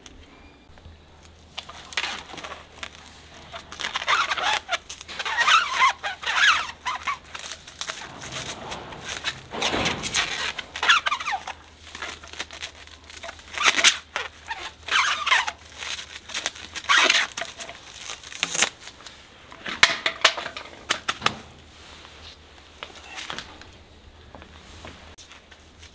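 Plastic film crinkling and tape being pulled off the roll in irregular ripping strokes, some with a squeak, as a horse's hoof is wrapped.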